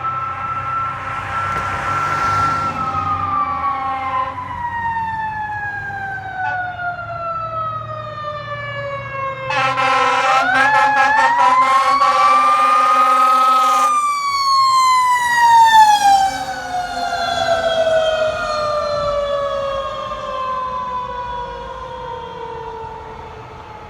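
Fire tower truck's Federal Q mechanical siren coasting down in a long falling wail, then wound back up while the truck's air horns blast for about four seconds near the middle, before it coasts slowly down again.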